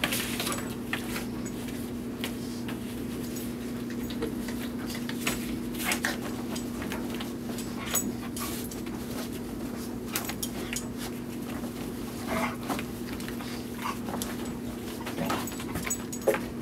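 A puppy and an adult dog play-fighting: scuffling and quick clicks and thumps of paws on bedding and mat, with a few short whimpers. A steady low hum runs underneath.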